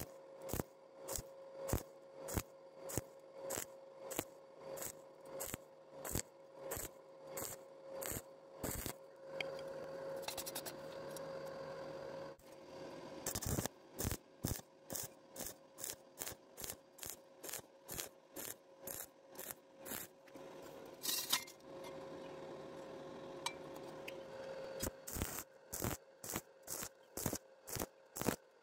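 Stick welding arc on thin steel square tubing, struck and broken in short crackling pulses about twice a second, the on-off stitch technique that keeps thin metal from burning through. Twice the arc is held for a few seconds of steady crackle.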